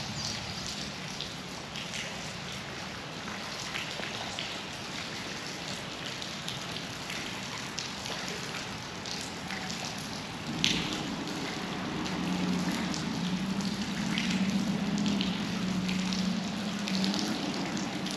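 Steady rush of flowing river water with scattered small clicks and crackles. About ten seconds in, a deeper steady sound joins and grows louder.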